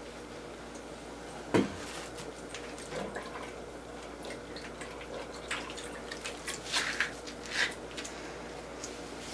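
A roll of fiberglass casting tape being squeezed in and over a bucket of water, giving short wet squelches and drips, most of them in the second half. One sharp knock about one and a half seconds in is the loudest sound.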